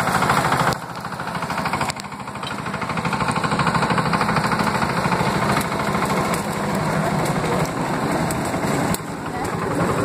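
Two-wheel walking tractor (tobata) engine running with a rapid, even firing beat as it drives along; its level drops briefly about a second in and again near the end.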